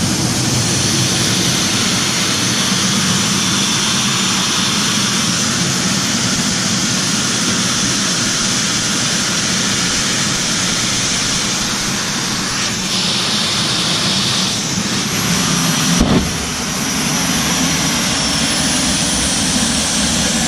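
Jet engine on a test trailer running under power, a loud steady roar with a hissing top end. About 16 seconds in there is a sharp thump, after which the low rumble grows heavier.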